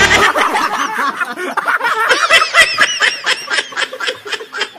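Several men laughing hard together, quick overlapping high-pitched cackles and giggles. It follows a short wrong-answer buzzer sound effect right at the start.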